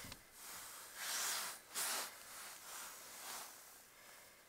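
A person's soft breath close to the microphone: a run of short breathy puffs with gaps between them.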